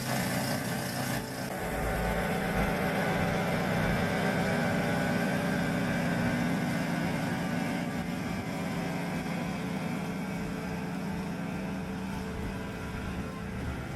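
Yamaha YT1070 snow blower engine running steadily, slowly fading.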